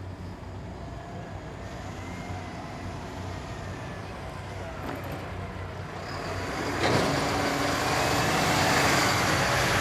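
Large fire truck's engine running steadily, with a loud rushing hiss that sets in suddenly about seven seconds in and holds.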